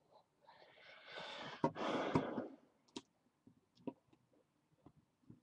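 Sharp plastic clicks of a red hard-shell iPod Touch case being pressed and snapped onto the player by hand, with a long, breathy sigh about a second in.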